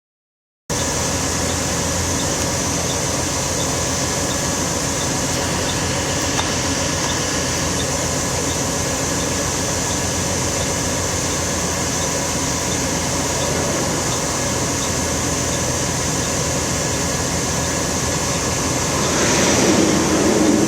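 Steady hum of an idling vehicle engine, with faint regular ticking over the first several seconds. Near the end another vehicle approaches and passes close by with a brief rising rush.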